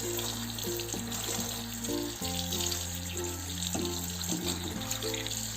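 Water running steadily from a tap as peeled ginger root is rinsed clean, over background music.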